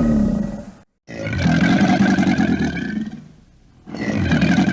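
Spectacled caiman calling: one call breaks off abruptly about a second in, a second call lasts about two seconds, and a third begins near the end.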